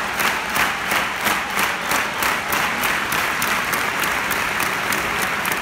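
Arena crowd clapping in unison in a quick, steady rhythm, over a constant din of crowd noise.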